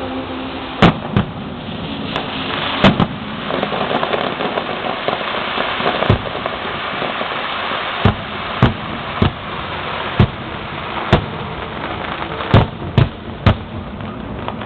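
Fireworks display: about a dozen sharp bangs of bursting shells at irregular spacing, over a continuous crackle that is densest a few seconds in.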